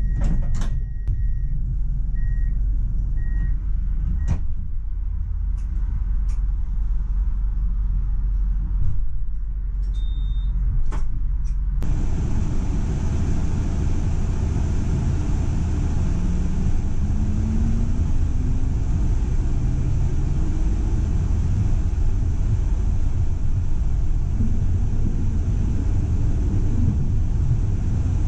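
Tram heard from the driver's cab. For the first half there is a low hum with a few short beeps and scattered clicks. About halfway a louder, steady running noise begins, and a motor whine rises slowly in pitch as the tram picks up speed.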